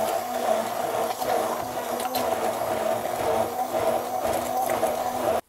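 Stainless-steel immersion (stick) blender running steadily at a constant pitch, puréeing chopped tomatoes and shredded coconut into a paste in a plastic jug. The motor stops abruptly near the end.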